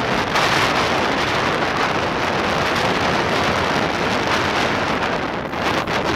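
Steady wind noise rushing over a bicycle camera's microphone.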